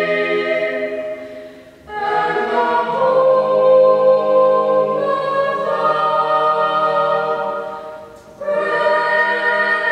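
A small group of voices singing the national anthem unaccompanied, in long held notes. The singing fades into a short breath-pause between phrases about two seconds in and again near the end.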